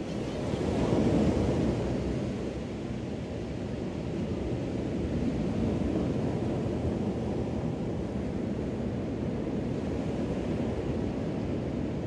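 Ocean surf washing up on a sandy beach, a steady wash of small waves that swells loudest about a second in.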